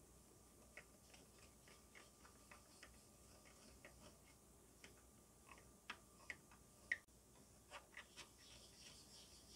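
Faint, irregular small ticks and clicks of a painted plastic model car body being handled and rubbed with a pad, with a sharper click about seven seconds in and a soft rubbing hiss near the end.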